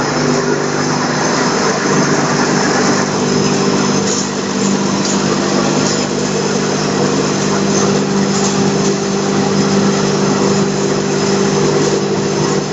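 FİMAK spice crusher and its electric-motor-driven suction blower running steadily: a loud, even machine hum with several held tones over a rushing noise.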